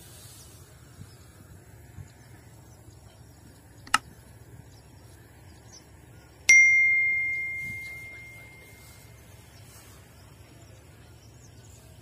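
Sound effects of a subscribe-button animation: a single sharp click, then about two and a half seconds later a bell-like ding that rings out clearly and fades away over about three seconds.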